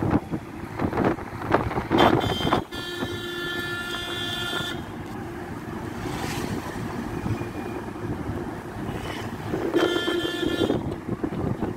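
A vehicle horn blares twice, a held blast of about two seconds and a shorter one near the end, over steady road noise heard from inside a moving car. A few knocks and bumps come in the first seconds.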